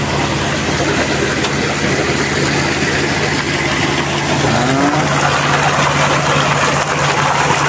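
Sand-and-water slurry gushing from a river sand dredge's discharge hose into a truck bed, over the steady drone of an engine running.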